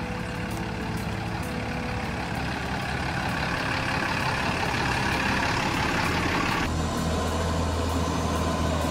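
Ram pickup truck engine running at low speed as the truck crawls over a wooden plank bridge. About seven seconds in the higher part of the sound drops away and a deeper, steady hum comes to the fore.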